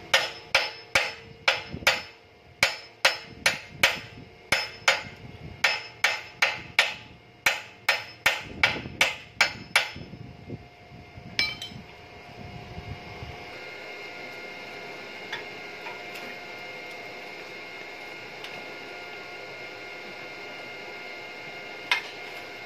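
Hammer blows on a red-hot steel rod on an anvil, ringing sharply, about three a second in runs with short pauses, stopping about ten seconds in after a last single blow. A steady hum follows.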